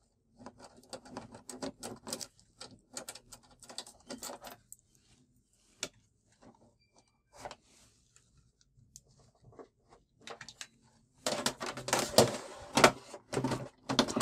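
Hands handling the plastic back cover of an LED TV: scattered small clicks and rustles, then near the end a few seconds of louder, dense clicking and knocking as the cover is worked loose.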